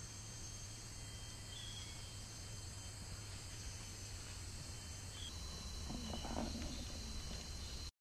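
Tropical rainforest insects keeping up a steady, high-pitched chorus; a second, stronger insect tone joins about five seconds in. A faint voice is heard about six seconds in, and the sound cuts off suddenly just before the end.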